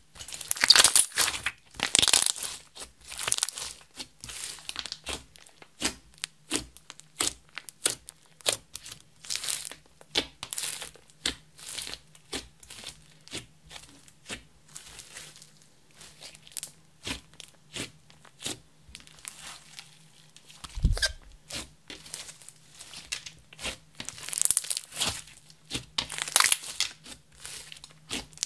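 Hands kneading, folding and pressing a thick clear slime mixed with makeup and glitter, with a run of sticky crackles, clicks and squishes. There are louder bursts near the start and in the last few seconds, and one dull thump about three quarters of the way through.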